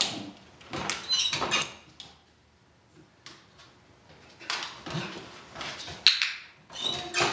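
Wire door of a plastic dog crate being shut and latched, with metallic clinks and rattles, followed after a pause by scattered small knocks and one sharp click.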